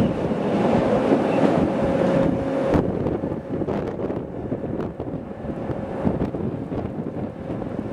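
Rhaetian Railway electric train on the metre-gauge Bernina line rolling along, with a steady rumble and a held humming tone that stops about a third of the way in. After that the wheels clack over rail joints several times at uneven spacing.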